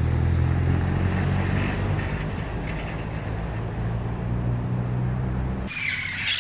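Steady low engine hum that stops abruptly about five and a half seconds in. Near the end, an Amazon parrot squawks loudly.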